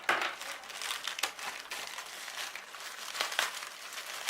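Amazon shipping package being opened by hand, its packaging crinkling and rustling with irregular sharp crackles.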